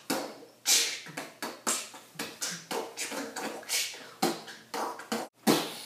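A person making a rapid, uneven run of short hissing and popping mouth sounds, about two or three a second, as in beatboxing.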